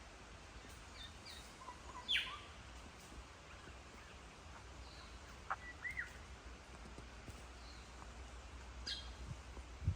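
Rainforest birds calling in scattered short chirps and whistles: the loudest are a quick falling whistle about two seconds in and a rising note near the middle. They sit over a steady low rumble, with a short low knock near the end.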